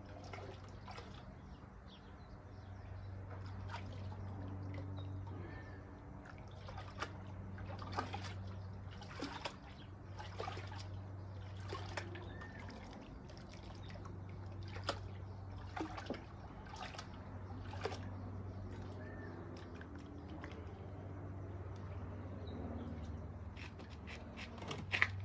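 Water sloshing and swirling in a gold pan as concentrate is panned, with sharp clicks of gravel and small rocks knocking against the pan. A low steady hum runs underneath.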